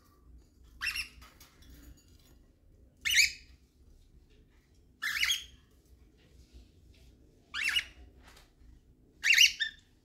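Cockatiel giving five short, high calls, roughly two seconds apart.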